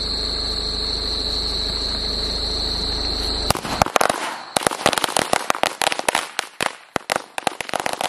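A Standard-brand 100-shot firecracker string (ladi) going off: about three and a half seconds in it bursts into a rapid, irregular run of sharp bangs that keeps going.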